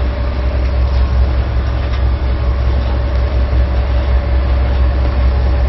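Tugboat's diesel machinery running, a steady low drone with a faint steady hum above it, heard inside the wheelhouse.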